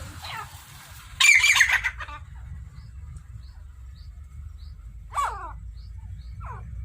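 Quail calling: a loud burst of harsh, falling calls about a second in, then shorter falling calls near 5 and 6.5 seconds, with faint high chirps between them. A steady low rumble runs underneath.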